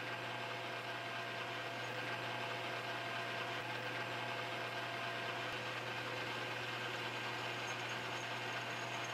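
Metal lathe running steadily with a constant hum while its turning tool takes a shallow cut along a small 1018 cold-rolled steel screw blank.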